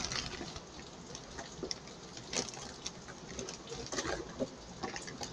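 Clear plastic packaging crinkling, with scattered small clicks and taps as plastic toy accessories are handled and taken out. A steady hiss of heavy rain runs underneath.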